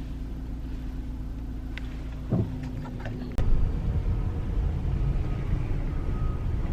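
Car road and engine rumble heard from inside the cabin, with a few light clicks. About three and a half seconds in it turns suddenly into a louder, rougher rumble.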